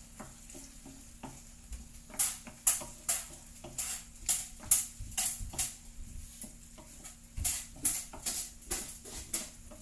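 Wooden spatula stirring and scraping onions and sardines around a hot frying pan, a quick scrape about twice a second, over a faint sizzle of frying.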